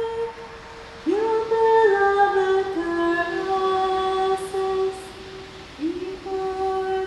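Background music: a slow melody of long held notes sung by a woman's voice, with new phrases about a second in and again near the end, each sliding up into its first note.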